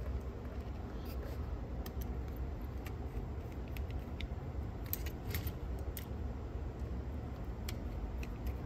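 Light metallic clicks and scrapes of a screwdriver turning small screws into a cassette deck's tape transport chassis, with scattered ticks that come more often after about five seconds, over a low steady hum.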